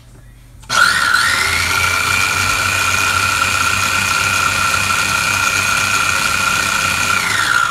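Small electric food chopper's motor running with a steady whine while it grinds tomato, onion and chile into a purée. It starts about a second in with a rising pitch and winds down at the very end.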